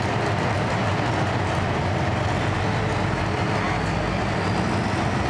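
Engine of an Outlaw 4x4 pulling truck idling steadily while the truck sits hooked to the sled, a continuous low rumble with no revving.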